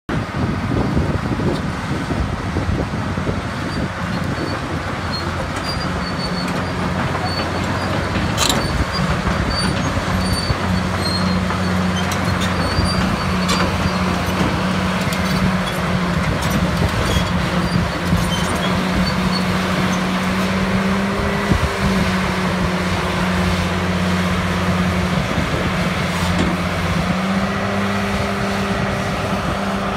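Caterpillar 330BL excavator's Cat 3306 six-cylinder diesel running as the boom and arm are worked. Its steady note shifts in pitch a few times, about a fifth of the way in and again near the end, with one sharp click about a quarter of the way in.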